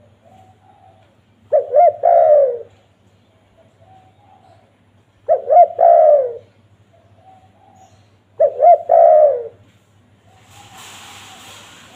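Spotted dove (tekukur) cooing: three loud phrases about three seconds apart, each two short notes and then a longer note falling in pitch, with softer short coos between them. A hiss comes in near the end.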